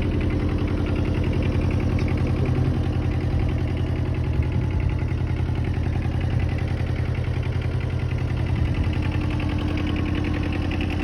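Kobelco SK09 mini excavator's diesel engine running steadily at an even speed, with no revving.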